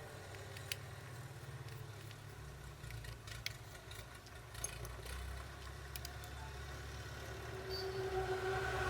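Steady low rumble like a motor vehicle running, with a few sharp clicks. Near the end a steady tone like a horn or siren rises in.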